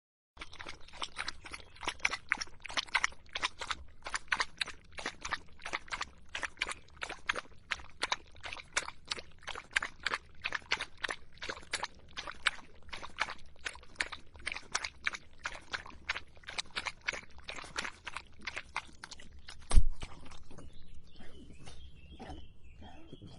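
A dog lapping water from a bowl in quick, even wet laps, about four to five a second. A single loud thump comes about twenty seconds in, and the lapping goes on more faintly after it.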